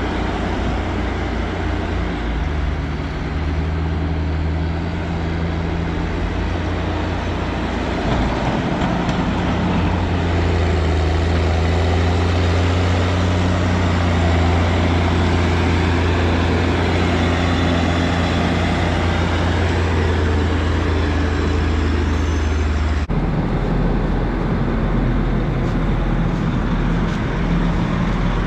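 Heavy diesel engine running steadily, its note rising and getting louder about eight seconds in. The sound changes abruptly near the end to a different, lower engine drone.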